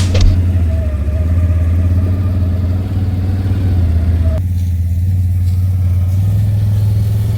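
An engine running steadily with a low drone. About four and a half seconds in the sound changes abruptly, and a thin higher whine drops out.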